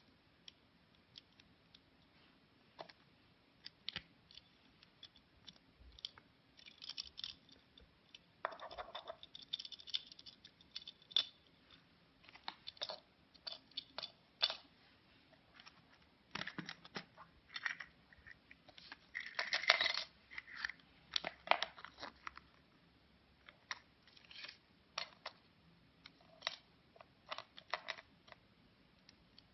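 Surprise eggs being unwrapped and opened by hand: irregular sharp clicks and snaps with short bursts of crinkling and rustling, busiest about two-thirds of the way through.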